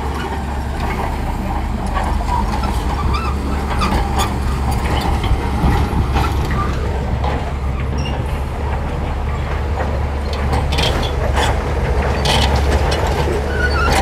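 Shantui crawler bulldozer's diesel engine running steadily under load as it pushes sand, with a scatter of sharp metallic clanks from the tracks and blade that come more often near the end.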